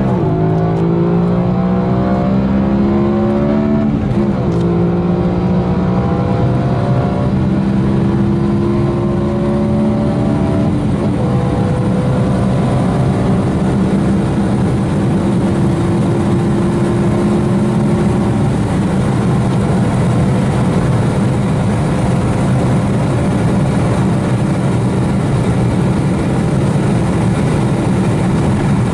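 BMW M3 (420 hp, E9x generation) 4.0-litre V8 under full-throttle acceleration from about 100 to 280 km/h. Its engine note climbs through each gear, dropping at upshifts about 4 s and 11 s in, then rises only slowly in top gear as the car nears top speed.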